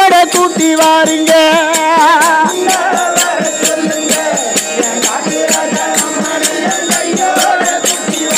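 A Tamil devotional bhajan group singing, with a wavering vibrato melody held for the first couple of seconds, over a steady fast beat of hand drums. After that the drumming and a busier, less distinct vocal mix carry on.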